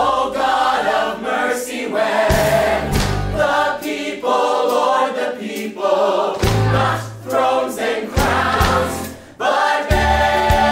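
Group of voices singing an upbeat gospel-style song over instrumental backing with a stepping bass line.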